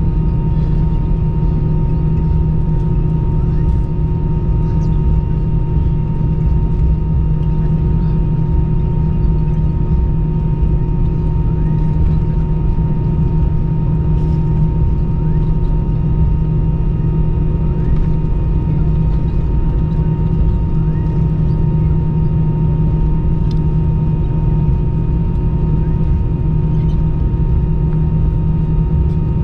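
Steady cabin noise inside an Airbus A319 on the ground after landing: a constant low rumble under an even hum of several fixed tones, with a few faint scattered clicks.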